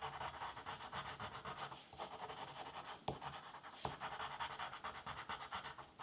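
Colouring pencil scratching on paper in quick, continuous back-and-forth strokes as an area is shaded in, with a couple of sharper ticks a little after the middle.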